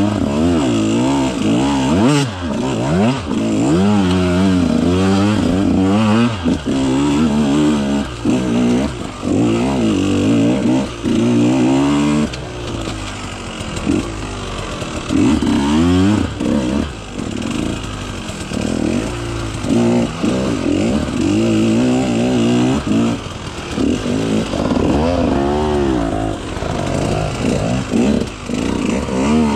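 2018 KTM 150 XC-W's two-stroke single-cylinder engine revving up and down in short throttle bursts under load. It eases to a lower, steadier run for several seconds midway, then the bursts start again.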